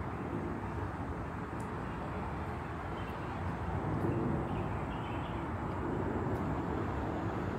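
Outdoor city ambience: a steady hum of road traffic, with a few faint high chirps.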